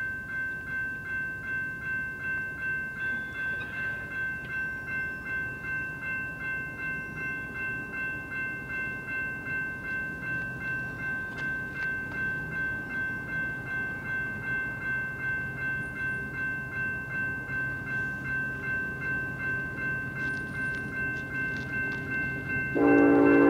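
Railroad grade crossing's electronic warning bell ringing steadily at about two strokes a second. About a second before the end, the horn of an approaching freight locomotive starts sounding, much louder than the bell.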